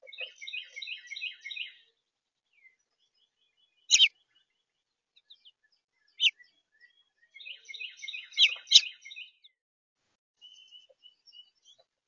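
Small songbird singing in two quick twittering phrases of rapid high notes, one at the start and one about two-thirds of the way through, with a sharp single call note at about four and six seconds in.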